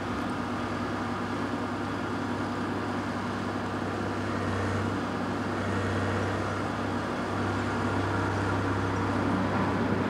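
Scrapyard magnet crane's engine running with a steady low drone, swelling slightly about halfway through.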